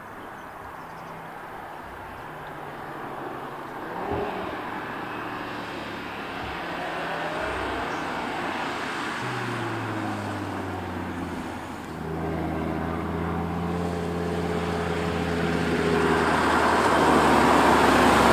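Audi TT RS Roadster's turbocharged five-cylinder engine with its sports exhaust, approaching at a steady, even engine speed. It grows louder as the car draws near, and the exhaust note comes through clearly over the last several seconds.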